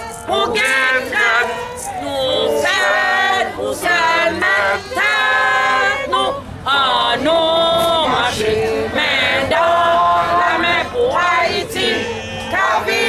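A group of people singing a song together, men's and women's voices, with long held notes.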